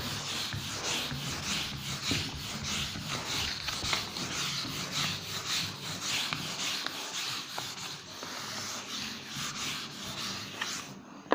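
Felt whiteboard eraser rubbed back and forth across a whiteboard, wiping off marker writing in a run of repeated strokes that stops shortly before the end.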